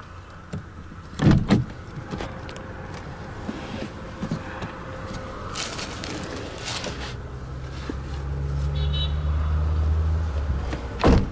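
Two sharp thumps and rustling of a plastic seat cover as someone climbs out of the back seat of a Mitsubishi ASX, with a low steady hum for a few seconds, then the rear passenger door shut with one loud thud near the end.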